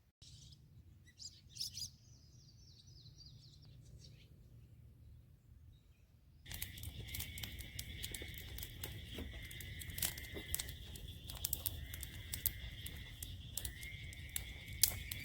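Wild birds chirping, with a short falling series of calls, over a low hum. About six seconds in, a steady high buzzing begins, with many sharp scattered clicks and crackles.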